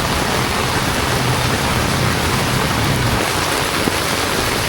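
Heavy rain falling steadily, a dense even hiss of drops with a low rumble underneath.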